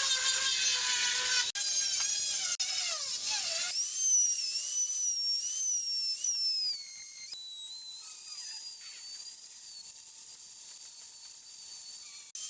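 High-speed electric power tool whining, its pitch wavering and sliding down under load. The sound is chopped into several short takes with abrupt cuts between them.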